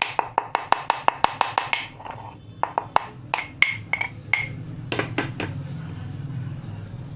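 A black peppercorn being pounded into powder: quick repeated sharp strikes, about five a second for the first two seconds, then slower scattered strikes until about five and a half seconds in. A low hum follows near the end.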